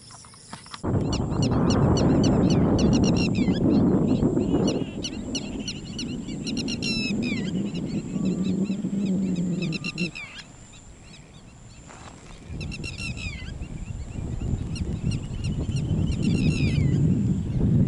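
Birds calling outdoors in quick series of short, chirping notes over a loud, uneven low rumble. The rumble starts suddenly about a second in and drops away for a couple of seconds past the middle. A steady high insect whine runs underneath.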